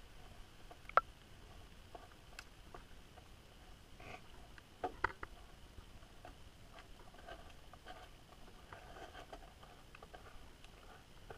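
Underwater ambience beneath lake ice: a faint steady hiss with scattered sharp clicks and ticks, one loud click about a second in and a short cluster of clicks around five seconds.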